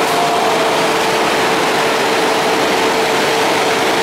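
Nippon Sharyo KRD MCW 302 diesel-hydraulic railcar heard from inside the coach: a loud, steady engine and running drone with a constant mid-pitched whine.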